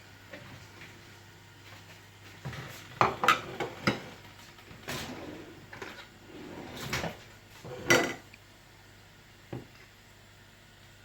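Dishes clattering: a plate is taken out and set down, with a run of sharp knocks of crockery, loudest a few seconds in and again near the end.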